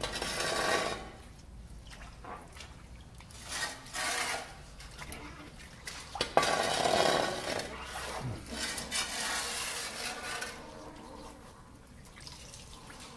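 Water from a hose splashing in a muddy drain pit, coming in several surges, with a sharp knock about six seconds in.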